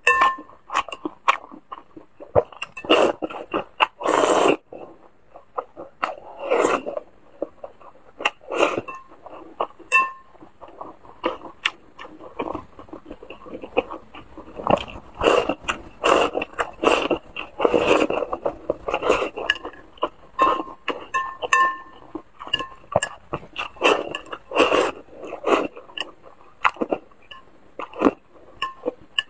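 Close-miked eating: irregular chewing and mouth sounds, with chopsticks clinking against a ceramic bowl now and then.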